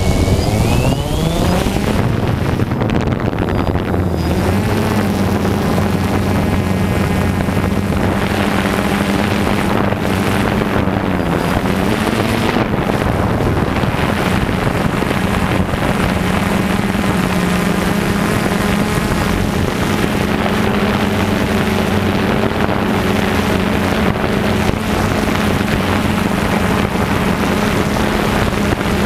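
DJI Phantom 2 quadcopter's electric motors and propellers, heard from on board, spinning up with a rising whine as it lifts off, then a steady loud buzz as it hovers.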